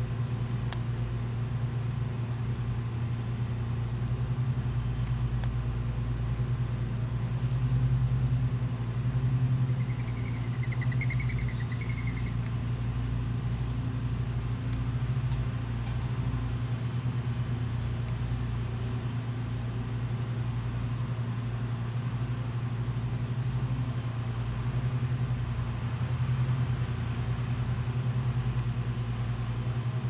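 A steady low hum, with one brief high trilled call about ten seconds in.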